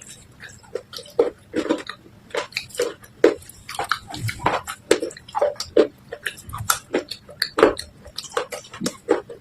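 Wet crunching and squelching of soaked clay and slate pieces being crushed in a bowl of red paste: many short, irregular crunches, a few each second.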